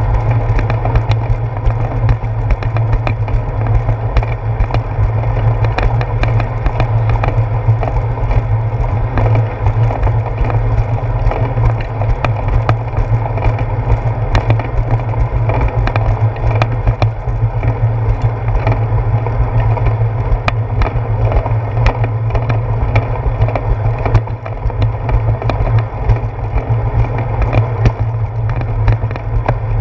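Steady rumble and rattle of a bicycle rolling along a concrete path, picked up through a handlebar-mounted GoPro Hero 4 camera, with frequent sharp clicks and knocks as the bike jolts over the slab seams and bumps.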